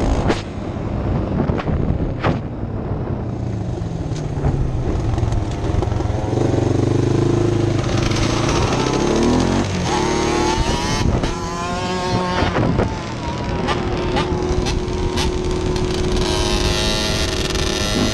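ATV and dirt bike engines running on the move, the engine pitch rising and falling repeatedly as the throttle is opened and closed and gears change.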